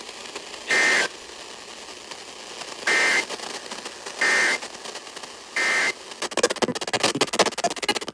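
Emergency Alert System end-of-message data bursts over a radio: four short bursts of warbling digital tone about a second or two apart, over a steady hiss. Crackling radio static takes over from about six seconds in.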